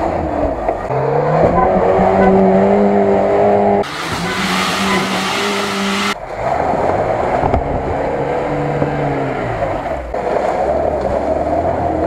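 Off-road 4x4 engines, Lada Nivas among them, revving hard while driving through mud, in short clips cut together. Engine pitch climbs and holds high, a rush of noise with no pitch takes over for about two seconds around four seconds in, then the revs rise and fall as the throttle is worked.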